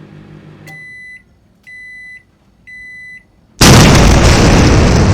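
Three short, high electronic beeps, evenly spaced a second apart, then a sudden very loud explosion-like blast that slowly dies away.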